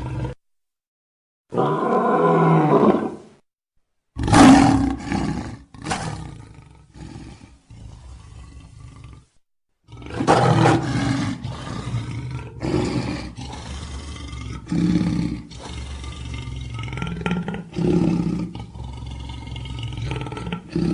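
Lion roaring: a long roar, then after gaps of dead silence a series of shorter roars and grunts, several a second or so apart.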